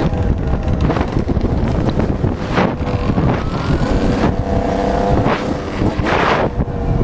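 Dirt bike engine running hard at speed, its pitch climbing as it revs up through the gears and dropping at each shift. Wind buffets the microphone in several short gusts.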